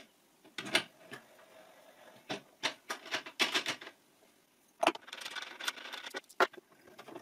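Small metallic clicks and rattles of steel nuts being spun onto a threaded rod and tightened against a ball bearing with a wrench, in uneven runs of quick clinks.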